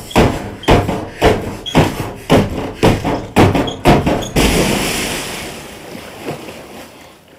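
Trailer soundtrack percussion: a steady run of heavy hits, about two a second, ending about four seconds in with a final louder hit that rings out and fades away over about three seconds.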